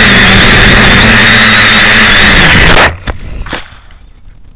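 Bat Bone V-tail quadcopter's motors and propellers whining loudly and steadily, heard through its onboard camera's microphone. About three seconds in, the motors cut off suddenly, followed by two light knocks and rustling as the craft comes down in the grass.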